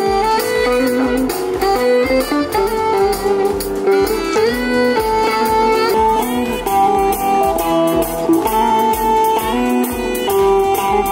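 Semi-hollow electric guitar played through a small Cube practice amplifier, picking a melodic lead line of sustained single notes, with a few notes bent upward about four seconds in.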